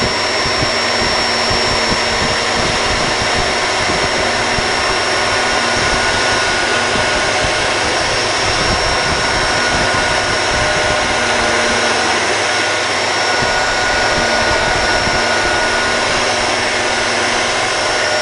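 Vacuum cleaner running at full power, a steady loud rush of motor and airflow with a thin high whine over it.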